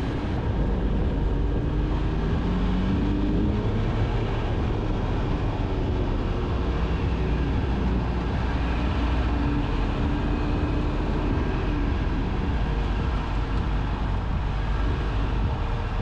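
A 2022 Honda Civic Sport driving, heard from a camera at the front wheel: steady road and tyre noise, with the 2.0-litre four-cylinder engine's pitch rising twice as the car picks up speed.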